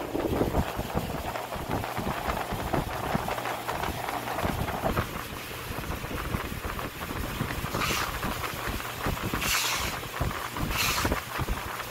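Watermelons being handled and packed into cardboard boxes, with a low, uneven rumble throughout. Near the end come three short scraping rustles, like cardboard or rinds rubbing.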